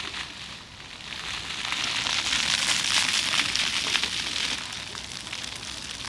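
Floor fountain jets splashing onto wet stone paving, a steady rain-like hiss of falling water. It dies down at the start as the jets cut out, swells back about a second in as they restart, and settles a little lower for the last second or so.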